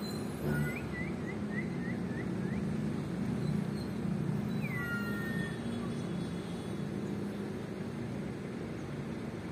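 Oriental magpie-robin (kacer) calling: a quick run of about seven short chirps in the first two and a half seconds, then one longer falling whistle about five seconds in. A steady low rumble runs underneath.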